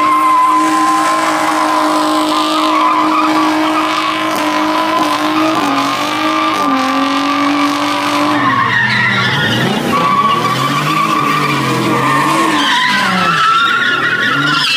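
Ford Mustang doing a burnout: the engine is held at high revs and the spinning rear tyres screech on the pavement. From about eight seconds in, the revs swing up and down repeatedly as the car slides around in circles.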